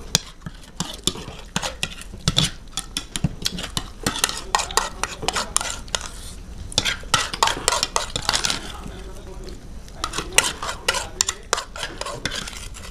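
Metal spoons scraping and clicking against paper plates in quick, irregular strokes, scooping up ghugni (spiced yellow pea curry), mixed with close-miked eating sounds.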